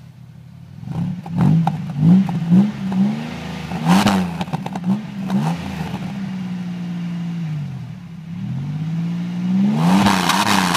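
Car engine revved in quick blips from about a second in, then held at a higher speed for a couple of seconds, dropping back and rising again louder near the end. The revving works Seafoam cleaner through the engine.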